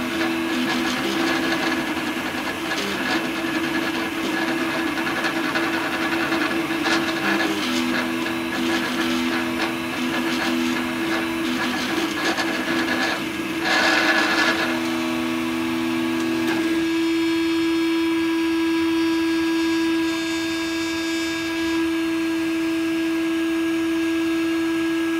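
Home-built 3D printer running a print: its stepper motors whine in tones that shift as the print head and bed move. About 14 seconds in there is a brief louder rush, and from then on a single steady tone holds.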